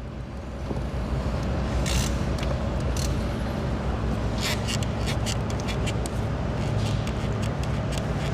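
A steady low machine hum, with scattered light clicks and scrapes.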